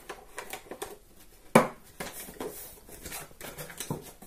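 Paper being handled and rustled, with soft scattered clicks. About a second and a half in comes a single sharp knock: a small plastic glue bottle set down on the cutting mat.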